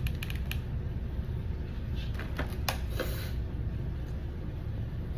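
A soft chewy cookie being bitten into and chewed: a few light clicks near the start, then a cluster of sharper crackles about two to three seconds in, over a steady low hum.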